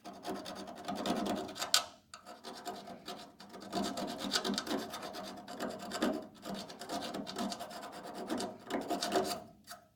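Steel door hinge being filed or scraped down by hand to clean bare metal before welding: repeated rasping strokes, with a brief pause about two seconds in.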